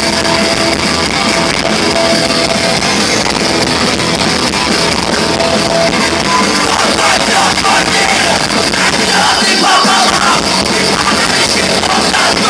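Rock band playing live, loud and dense, with no break.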